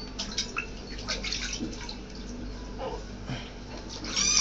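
Water splashing and dripping in a washbasin as something is washed in it, with a short, loud, high-pitched animal cry near the end.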